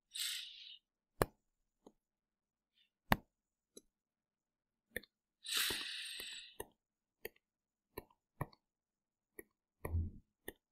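Computer mouse clicking on-screen calculator buttons: about ten sharp, separate clicks at uneven spacing, the two loudest about one and three seconds in. Two short hisses, one at the start and one around the middle, and a low thud near the end.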